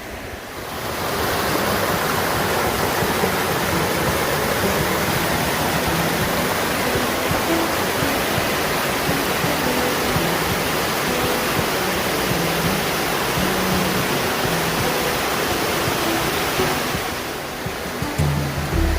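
Waterfall in a creek canyon: a steady, even rush of falling water that comes up about a second in and drops back near the end.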